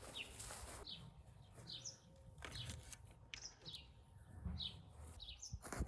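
A small bird chirping over and over, short high chirps coming every half second or so, with a few faint knocks, the loudest near the end.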